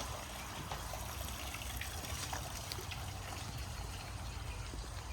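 Water trickling steadily in a small creek, with small splashes and ticks scattered through it.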